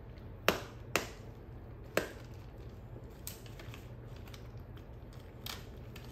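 Dog chewing a hard stick-shaped dog treat: sharp clacking cracks ('tak-tak') rather than a crunch, which shows how hard the treat is. Three loud snaps come in the first two seconds, then a couple of fainter ones later.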